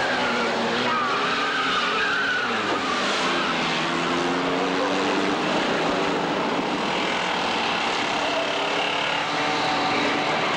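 Several stock cars' engines revving unevenly together over a steady rumble of tyres and track noise, with tyres squealing and skidding in the first few seconds.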